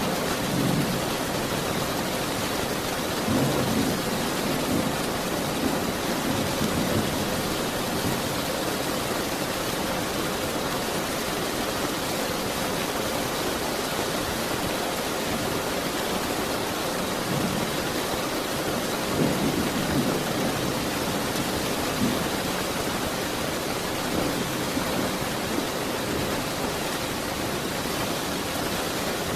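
Steady rain falling, with low rolls of thunder swelling in and out several times, most strongly near the start, a few seconds in and again around two-thirds of the way through.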